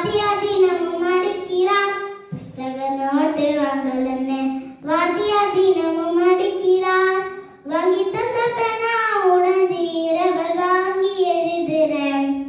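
A young girl singing a Tamil folk song unaccompanied, in four long phrases with a short breath between each.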